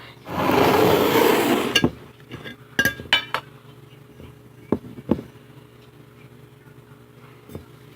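Loud crinkling rustle of plastic snack packaging for about a second and a half, then several sharp clinks and taps of dishes or glass, one ringing briefly, and two softer knocks about halfway through.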